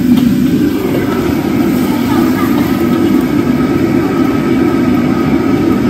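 Steady low rumble of a commercial kitchen's gas wok burner and overhead extraction hood running.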